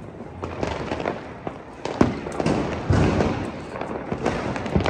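Diwali firecrackers going off: a steady run of scattered pops and crackles, with louder bangs about two and three seconds in and again near the end.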